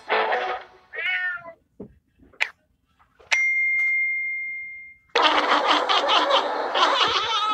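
A click and a single bell-like ding that rings on steadily for nearly two seconds, the chime of a subscribe-button animation. Then, from about five seconds in, a domestic cat meowing loudly and without a break.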